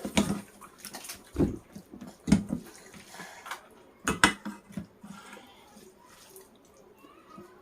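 Eating sounds at a meal: wet slurping and mouth noises with clinks of a plate or dish. A handful of short knocks and dull thumps come about 1.5, 2.5 and 4 seconds in.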